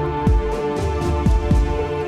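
Background electronic music: held synth tones over a deep kick-drum beat.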